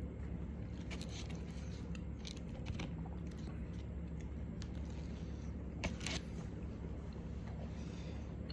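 A person chewing a bite of burger, with small scattered mouth clicks and handling sounds, over a steady low hum. A short knock about six seconds in is the loudest moment.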